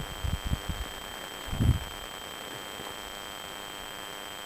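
Wind gusting against the microphone in a few short, irregular low rumbles in the first two seconds, the strongest about two seconds in. Under it runs a constant faint high-pitched whine and hiss.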